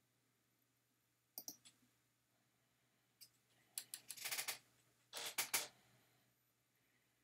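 Sharp clicks at a computer: single clicks about one and a half and three seconds in, then two quick clusters of clicks about four and five seconds in, as an answer is submitted and the next question loads.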